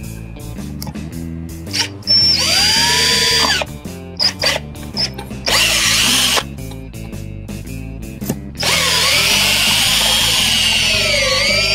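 Cordless drill boring screw holes into a camper's door frame in three runs: a short one about two seconds in, a brief one about halfway, and a longer one of about three seconds near the end, its pitch rising and falling as the speed changes.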